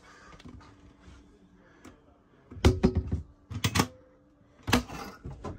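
Clicks and knocks of interior fittings in an RV camper van being handled, likely latches and cabinet doors opened so they stay up, in three short clusters about a second apart.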